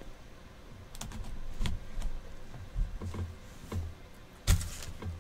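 Knife slitting the seal on a sealed trading-card box and the box being handled: scattered scrapes, rustles and light taps, with one sharp click near the end.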